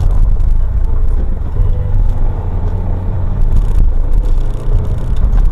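Motorcycle running on the road while being ridden, a loud, steady low sound.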